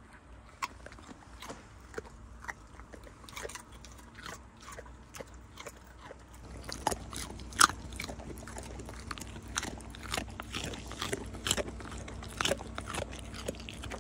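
Dogs chewing treats taken from the hand: an irregular run of sharp crunches that gets busier and louder about halfway through.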